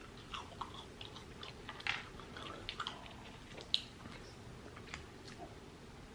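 A person chewing food close to the microphone: irregular wet mouth smacks and clicks, one sharper click a little before four seconds in.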